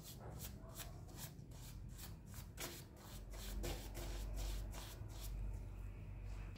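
A paintbrush scrubbing a brass vase in foamy vinegar solution: quick wet brushing strokes, about two to three a second, that stop near the end.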